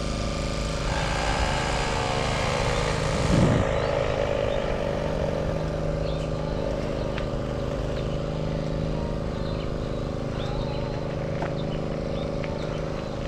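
Steady road and wind noise while cycling, with a motor vehicle passing about three and a half seconds in, its pitch falling as it goes by.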